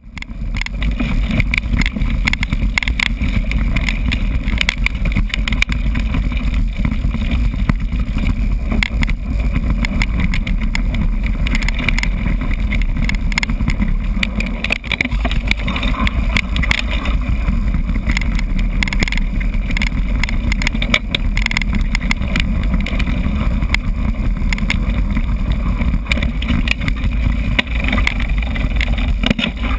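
Mountain bike ridden over a rough, rocky and grassy trail, heard through an action camera riding along: a steady, loud wind rumble on the microphone with constant rattling and knocks from the bumpy ground.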